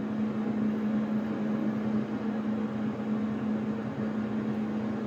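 CB radio receiver hissing with steady band static and a low hum from its speaker, no station coming back on the call.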